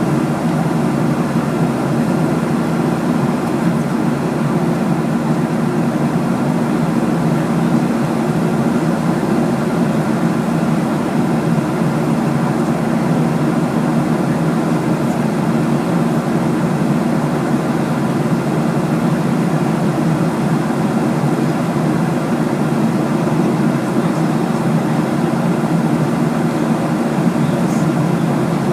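Steady, unchanging drone of an airliner's engines and rushing air heard inside the passenger cabin in flight.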